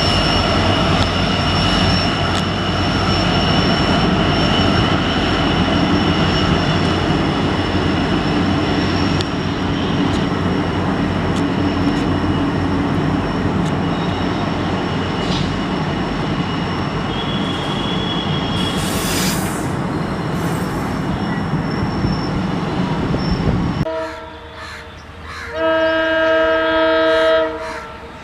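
An EMD diesel-hauled train passing close by: a steady rolling rumble with high steady squealing from the wheels. After a sudden cut, a diesel locomotive's horn sounds one blast of about two seconds near the end.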